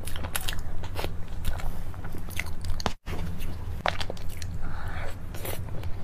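Close-up eating sounds: wet mouth clicks and chewing of spoonfuls of mousse cake, with a spoon scooping into the cake, over a low steady hum. The sound drops out for a moment about halfway through.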